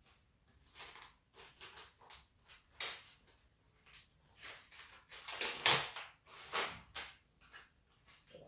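Plastic film crinkling and crackling as it is peeled off a plastic food tray by hand, in a string of short irregular crackles that are loudest about two-thirds of the way through.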